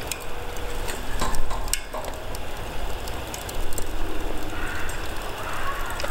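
Gas canister torch burner running with a steady rushing roar as its flame plays on charcoal, with a few sharp clicks about a second in.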